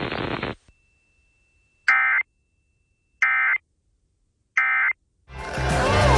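Emergency Alert System end-of-message signal: three short, identical digital data bursts about a second apart, closing a tornado-warning broadcast. The synthesized warning voice ends just before, and music resumes near the end.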